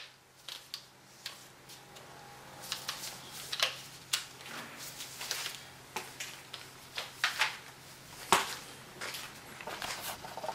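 Irregular light clicks, taps and short rustles of hands handling tools and materials, scattered through a quiet room with no machine running.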